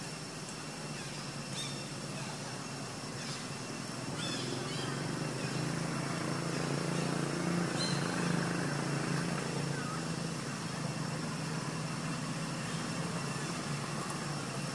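Low hum of a distant motor vehicle engine that swells over a few seconds in the middle and then holds steady, over outdoor background noise, with a few short high chirps.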